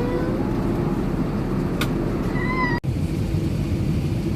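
Steady low rumble of an Emirates A380 cabin in flight, with a few faint, short squeaky glides above it. The sound drops out for an instant about three seconds in.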